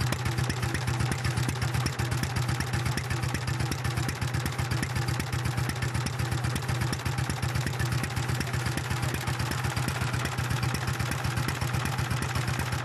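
A historic stationary engine running steadily at an even speed, with a fast, regular beat of firing strokes.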